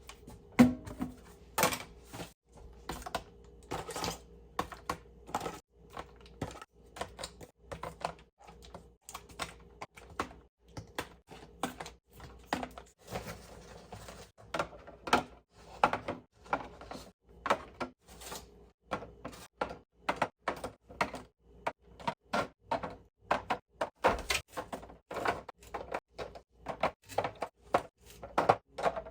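Irregular clacks, taps and knocks, several a second, of groceries, packaging and containers being handled and set down while restocking a fridge.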